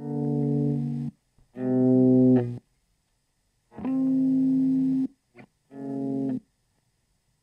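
Guitar music: four sustained guitar chords, each held about a second and cut off abruptly, with short silent gaps between them and a brief note after the third.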